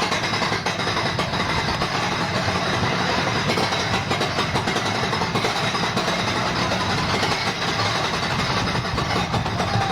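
Steel roller coaster train running with a steady, dense mechanical clatter of rapid ticks.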